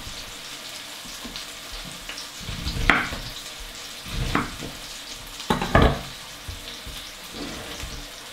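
Chicken frying in a pan with a steady sizzle, and a kitchen knife cutting through a lemon onto a wooden chopping board in four sharp knocks, the loudest about three seconds in and near six seconds.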